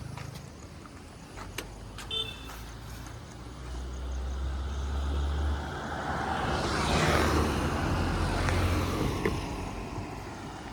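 Motorcycle engine and exhaust running on the road, with a rush of road noise that swells up about two thirds of the way through and then fades away.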